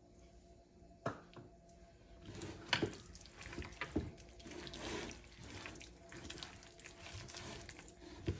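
Hand squishing and mixing wet marinated chicken pieces with cornflour, a soft, irregular wet squelching that starts about two seconds in. A single sharp click comes about a second in.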